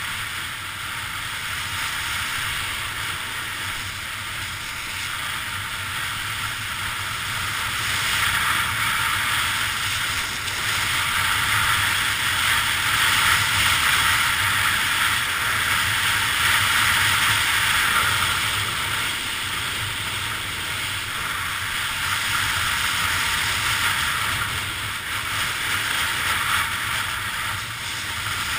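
Steady rush of wind over a GoPro action camera together with the hiss of sliding fast over groomed snow. It grows louder about eight seconds in and eases a little after the middle.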